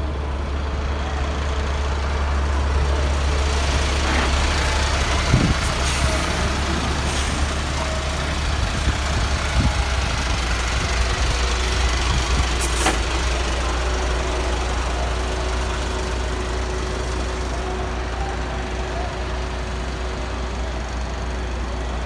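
Heavy diesel truck engine idling close by, a steady low rumble, with a broad hiss swelling and fading over the first half.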